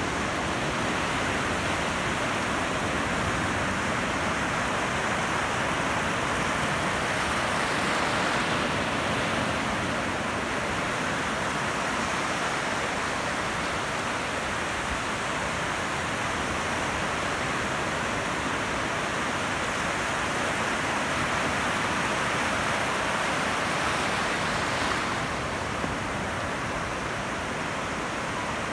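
Ocean surf: a continuous rushing wash of breaking waves, swelling a little about eight seconds in and easing slightly near the end.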